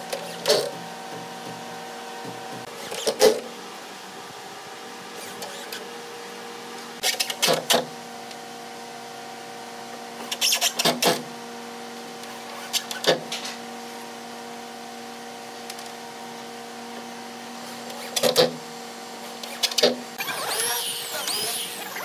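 Sharp knocks on the wooden cabinet as its panels are fitted, single or in quick groups of two to four, over a steady workshop machine hum. A rougher, scraping sound comes near the end.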